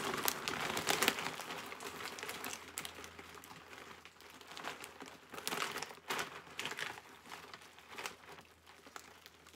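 Large plastic bag of croutons crinkling and rustling as it is handled and a hand reaches into it, in irregular crackles, loudest in the first second.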